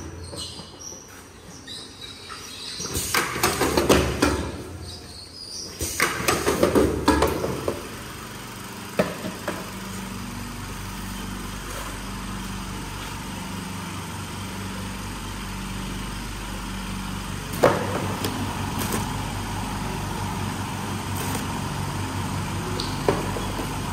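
Semi-automatic hot-melt glue box sealing machine running. Several loud, noisy bursts come in the first several seconds, then a steady hum with a regular low pulsing, broken now and then by a sharp click.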